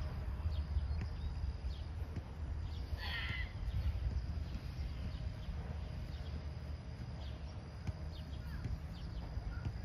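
Steady low outdoor rumble, with one short harsh bird call about three seconds in.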